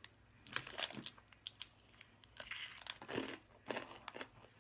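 Crinkling of a Cadbury Crunchie bar's foil wrapper and crunchy chewing of its honeycomb chocolate: scattered short crackles and rustles, busiest around the middle.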